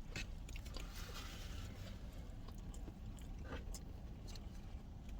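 A person chewing a chili pepper, with soft wet mouth clicks scattered throughout, over a faint low rumble.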